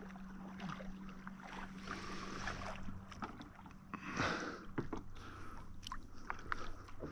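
Water lapping around a kayak, with a few light clicks and a brief louder rush of noise about four seconds in.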